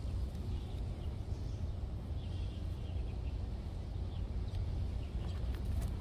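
Open-air ambience: a steady low rumble with faint bird chirps scattered through it, and a few light clicks near the end.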